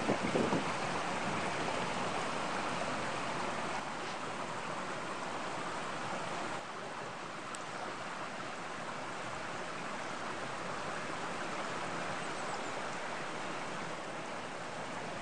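Small woodland stream running with a steady rush of water.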